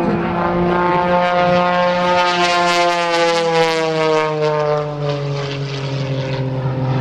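Modified Pitts Special aerobatic biplane's piston engine and propeller running at high power. The drone rises slightly in pitch, then falls gradually through the second half as the plane manoeuvres.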